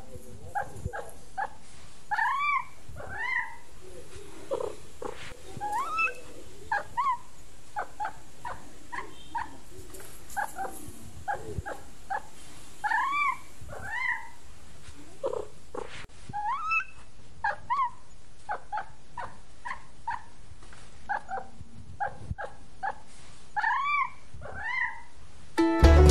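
Kittens mewing over and over: short, high calls, some rising and falling, every second or so. Music starts suddenly at the very end.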